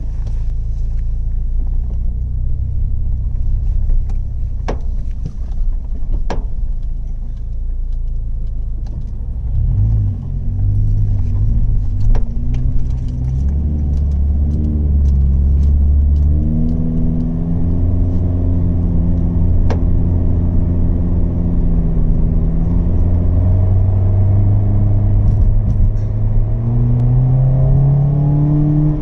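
11th-generation Toyota Corolla running, its engine note rising and falling over a steady low rumble, with several sharp pops a few seconds apart: a popping from the body that the owner puts down to the chassis flexing.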